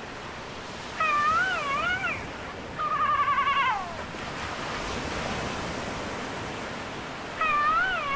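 Three warbling, pitched cries over a steady hiss. The first and last waver up and down in pitch about twice a second. The middle one trembles quickly, then slides downward.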